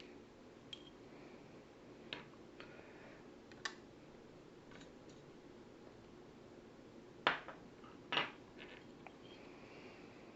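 Scattered small metallic clicks and taps as the key pins and drivers are tipped out of a disassembled Abus 72/40 padlock cylinder, with two louder taps about seven and eight seconds in.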